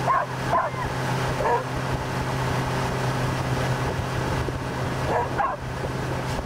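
A dog gives short, high whining yelps, three in the first two seconds and more near the end, over the steady running of a motorboat engine and the rush of its wake.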